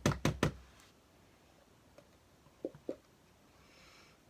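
A rapid series of hard knocks, about five a second, stopping about half a second in, then two light taps near the end.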